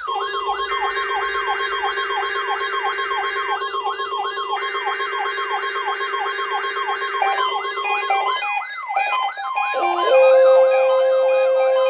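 Electronic emergency-alert siren tone: a rapid rising-and-falling yelp, about three or four sweeps a second, layered over steady tones. About ten seconds in it changes to a louder, steady chord of alarm tones.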